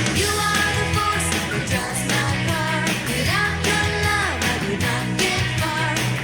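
Upbeat worship song with a rock beat: drums and bass under a melody, with some singing.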